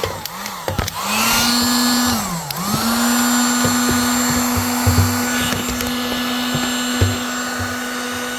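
Handheld electric heat gun's fan motor running with a steady hum, its speed dipping and recovering twice in the first three seconds, with a few light knocks of handling.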